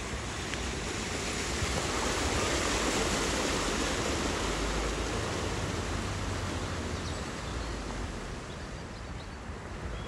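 Land Rover Defender wading through deep floodwater, its tyres churning up a rushing, splashing wash of water, with a low rumble underneath. The rush swells as it passes close and fades as it drives away.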